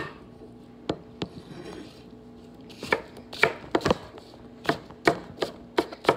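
Chef's knife chopping apple on a wooden cutting board, each stroke a sharp knock. There are a couple of separate chops early, then a quicker run of about two or three chops a second from about three seconds in.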